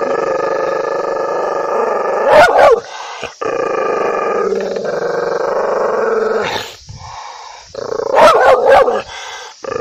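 An angry dog snarling and growling in long, steady stretches, broken by a loud bark about two and a half seconds in and a few quick loud barks near the end.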